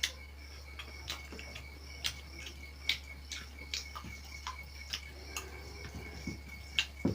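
Eating sounds: light, sharp clicks and taps at irregular intervals, roughly one a second, over a steady low hum.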